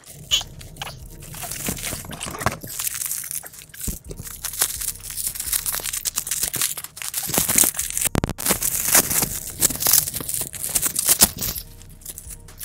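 Bubble wrap and plastic packaging crinkled and crackled by hand as it is unwrapped: an uneven run of crackles and small clicks, busiest from about two seconds in until near the end.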